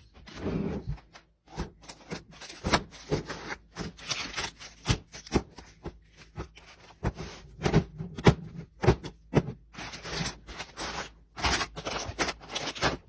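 Fridge restocking: a quick run of clicks, knocks and light scrapes as items are handled and set down, with short stretches of rustling between them.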